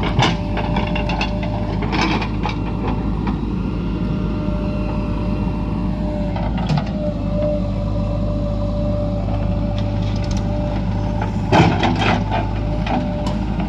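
Diesel engine of a JCB 3DX backhoe loader running steadily under work, with sharp metallic clanks about two seconds in and a louder cluster of clanks near the end.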